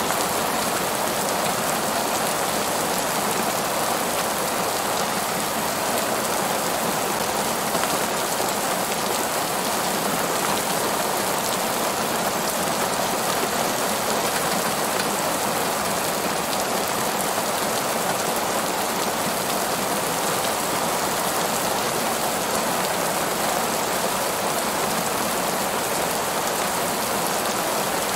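Heavy rain falling steadily on a parking lot, an even, unbroken wash of sound with no let-up.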